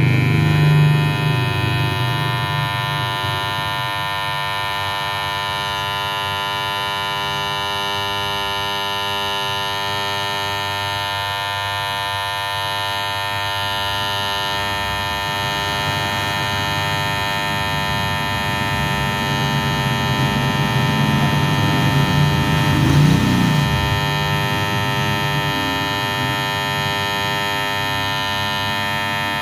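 Electric hair clipper running steadily with a constant buzz, swelling a little louder for a few seconds about two-thirds of the way through.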